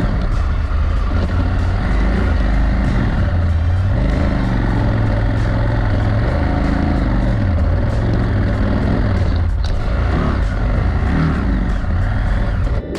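Adventure motorcycle engine running under way, its note rising and falling a few times, over steady wind and road rumble.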